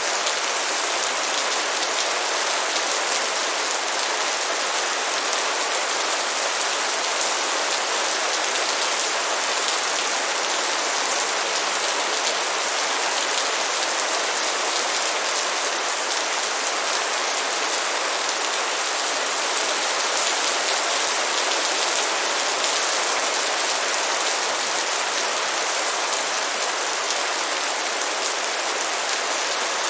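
Steady light rain falling, an even, unbroken hiss of many drops pattering on a surface.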